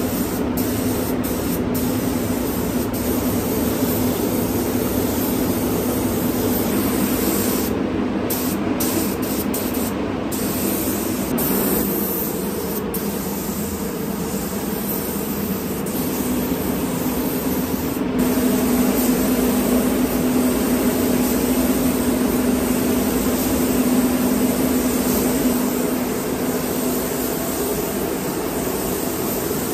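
Gravity-feed spray gun hissing steadily as it sprays epoxy primer over car bodywork, with a steady low hum underneath.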